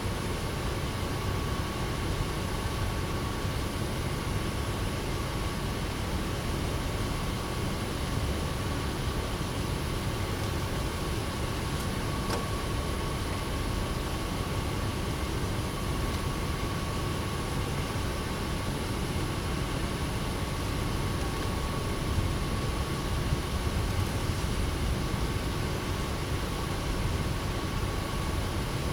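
Steady background noise: a low rumble and hiss with a faint steady high tone running under it, without distinct knocks or voices.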